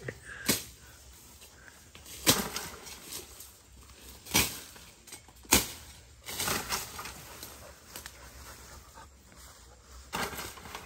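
A long wooden pole being worked up into trees in dense bush: about four sharp wooden knocks or cracks, one just after the start, one a little after 2 s, and two more between 4 and 6 s, with leaves and branches rustling between them.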